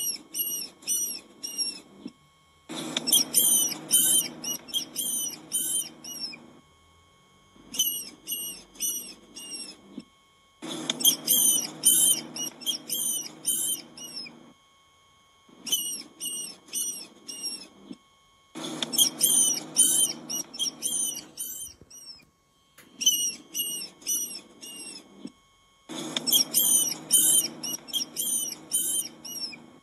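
Rats or mice squeaking: quick runs of short, high-pitched squeaks, several a second, in bouts of two to four seconds with brief pauses between them, over a lower rustling noise.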